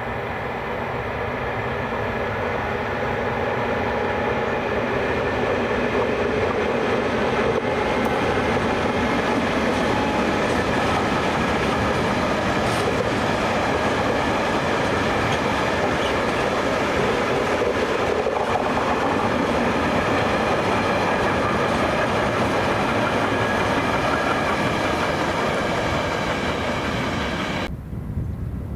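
A train rolling past on the rails, its wheels making a steady running noise with a few faint high tones over it. It swells over the first seconds, holds, and cuts off abruptly near the end.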